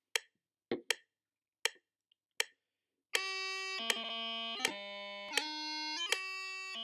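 A few sharp clicks as the instrument is handled, then, about three seconds in, a tune starts on a black end-blown wind instrument played with the fingers over its holes: held notes with a rich, buzzy tone step from pitch to pitch, each change marked by a quick sharp grace-note blip.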